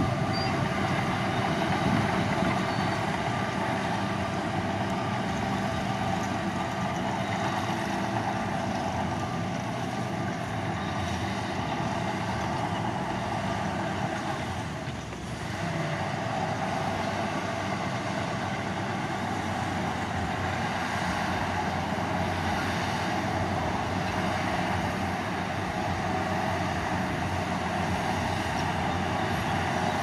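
Diesel engine of heavy earthmoving machinery running steadily at work, with a brief dip in level about halfway through.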